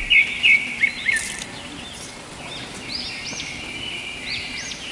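Birds chirping and singing: a quick run of short repeated chirps in the first second, then arched notes that rise and fall, recurring every second or so.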